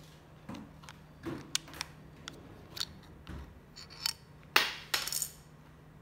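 AA batteries being handled and pressed into a plastic remote control's battery compartment: a series of small irregular clicks and clinks, with a louder scraping clatter about a second before the end.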